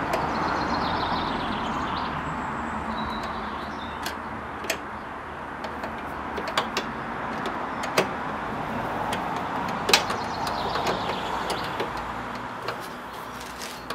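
A few sharp clicks and knocks of a hose clip being done up by hand in an engine bay, over a steady rushing noise that swells and fades.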